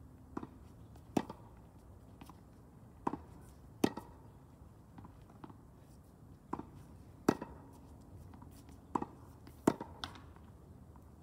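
Tennis rally: sharp pops of the ball struck by rackets, mostly in pairs about three-quarters of a second apart, recurring about every three seconds.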